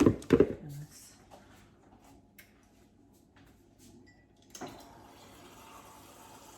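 A few knocks as a bowl is set down, then a kitchen tap is turned on about two-thirds of the way in and runs steadily.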